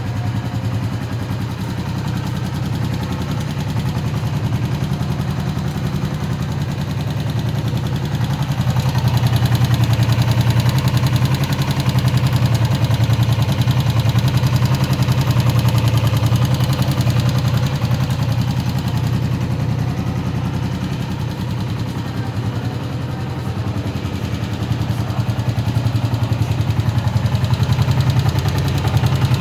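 Honda CB125F single-cylinder four-stroke engine idling steadily after warming up, with a knocking sound that the owner hears only once the engine is hot and cannot yet account for.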